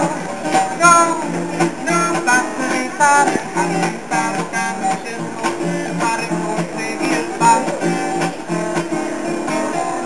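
Acoustic guitar being played, a steady run of chords with low bass notes and brighter single notes over them.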